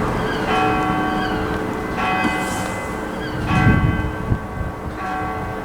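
A single large church bell, which the listener takes for the cathedral clock's hour bell, tolled four times, about one stroke every one and a half seconds. Each stroke rings on and fades before the next. He suspects the clock has malfunctioned, because the bell is sounding out of its usual time.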